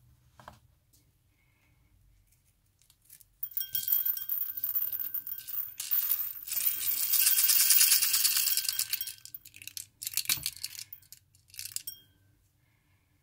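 Number 8 shotgun shot pellets pouring from a cut-open shell into a ceramic bowl: a dense stream of tiny clicks lasting about six seconds, then a few last pellets shaken out in short clatters.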